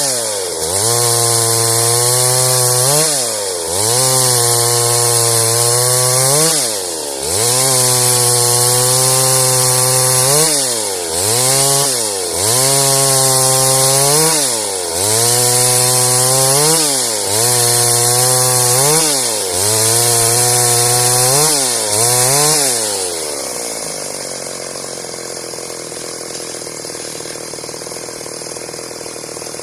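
Stihl MS 382 two-stroke chainsaw running at high revs through wood, its pitch dipping briefly and climbing back again and again. About 23 seconds in it drops to a quieter idle.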